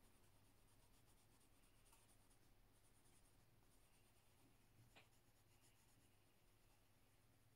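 Very faint, quick scratching of a coloured pencil shading on paper, with one faint tick about five seconds in.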